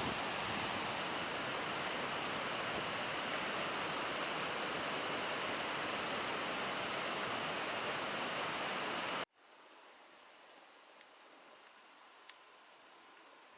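Steady rushing of a waterfall, cut off abruptly about nine seconds in. After the cut, crickets chirping faintly in an even high-pitched pulse.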